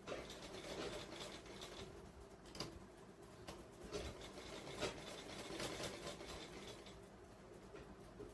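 Large tailor's shears cutting through cotton blouse fabric: the blades rasp through the cloth in uneven strokes, with a few sharp clicks as they close, amid the rustle of the fabric being smoothed and handled.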